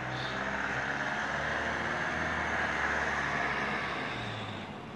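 A motor vehicle passing by: the sound of its engine and tyres swells to a peak about three seconds in and fades away near the end.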